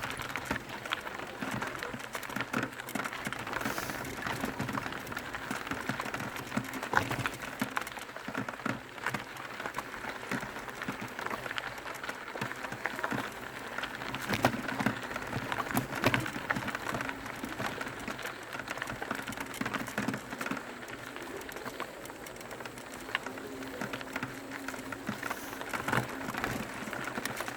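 Mountain bike riding down a dirt trail: steady rolling noise of the tyres over gravel and dirt, with frequent small rattles and knocks from the bike over rough ground.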